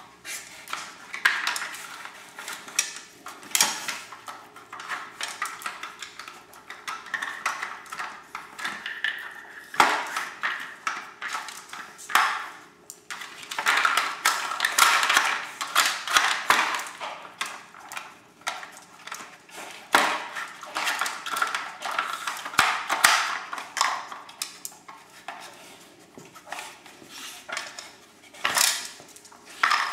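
Irish terriers working hard plastic treat-puzzle toys on a tile floor: plastic lids and pieces clattering, sliding and knocking in irregular bursts, busiest about halfway through.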